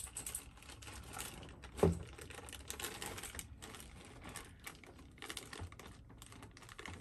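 Crinkling and crackling of a small clear plastic bag as fingers pick at it and pull it open, in a run of small rustles and clicks, with one louder thump about two seconds in.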